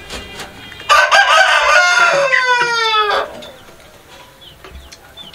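A rooster crowing once, starting about a second in and lasting about two seconds, ending on a long falling note.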